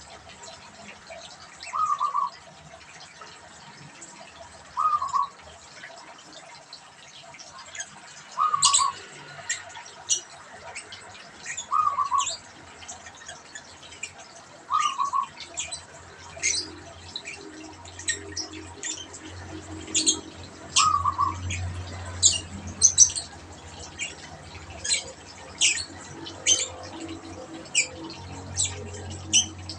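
Zebra dove (perkutut) cooing: a short, fluttering coo repeated every few seconds. Sharp high chirps of other small birds join from about a quarter of the way in, over a low hum in the second half.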